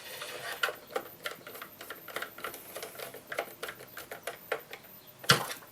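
Irregular small clicks and light taps of a Sega Dreamcast's plastic parts and tools being handled during reassembly, with one louder knock about five seconds in.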